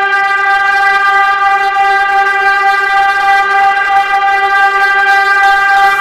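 New York City FC's stadium goal horn: a deep air horn much like a train horn, sounding one long, steady, unbroken blast.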